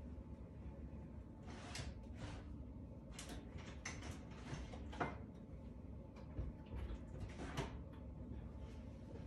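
Scattered kitchen handling noises: about half a dozen short knocks and scrapes, spaced a second or so apart, over a low steady hum.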